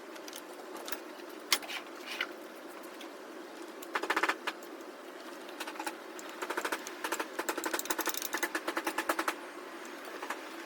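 Ratchet wrench clicking rapidly as bolts on the engine are backed out, in short runs, the longest lasting about three seconds in the second half, with a few single metallic clinks of tools early on.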